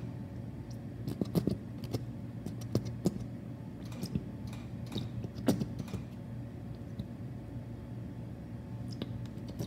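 Plastic squeeze bottle of ranch dressing being squeezed out, giving irregular small clicks and splutters, over a steady low hum.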